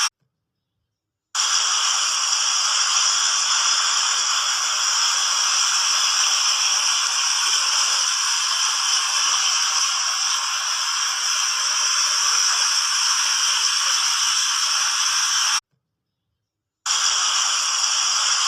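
Water fountain jets splashing steadily, a dense hiss of falling water. The sound drops to dead silence twice for about a second, at the very start and again near the end.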